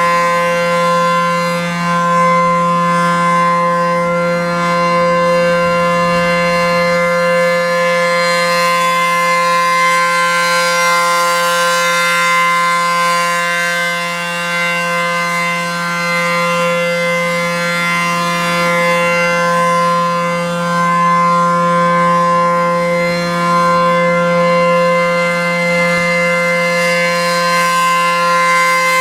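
ACA P-10 outdoor warning siren sounding a steady tone during its routine test. The pitch holds constant while the loudness swells and dips slightly.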